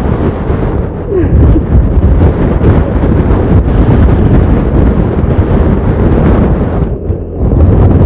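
Strong gusting wind buffeting the microphone of a camera mounted on a moving motorcycle: a loud, continuous low rumble that eases off briefly near the end.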